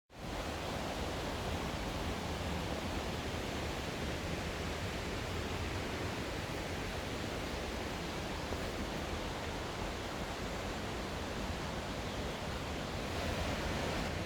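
Mountain stream and waterfall water rushing, a steady, even noise that fades in at the start.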